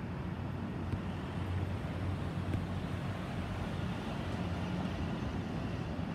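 Distant Airbus A320-216 jet airliner passing over, its CFM56 turbofan engines heard as a steady low rumble with a broad hiss above it.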